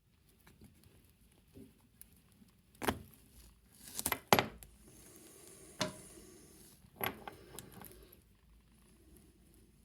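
Clicks and clatter of small hard parts and tools being handled: a few sharp knocks, the loudest a quick cluster about four seconds in.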